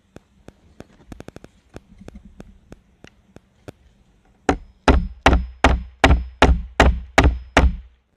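Claw hammer striking a steel nail held upright on a wooden board: about nine sharp blows in a steady rhythm in the second half, with a faint metallic ring. The nail's point is being hammered blunt so that it crushes through the wood fibres instead of splitting the board.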